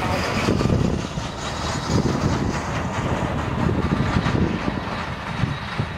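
Twin-engine jet airliner on final approach, heard as a steady, rumbling engine noise.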